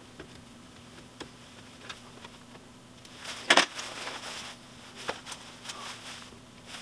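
Scattered light clicks and rustles of hands handling wire at a circuit breaker, the loudest a little past halfway, over a faint steady hum.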